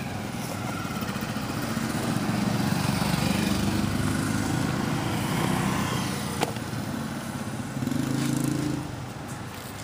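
A motor engine running, its low hum growing louder through the middle and swelling once more near the end, with one sharp click about six and a half seconds in.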